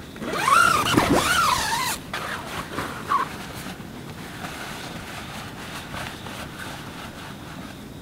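Tent door zipper pulled open in one long rasp, about a second and a half, its pitch wavering as it runs around the curve of the door. It is followed by a few short scrapes and rustles of tent fabric, then a steady outdoor hiss.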